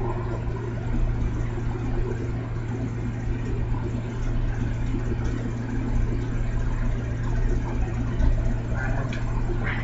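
Steady low hum over continuous background noise, unchanging throughout.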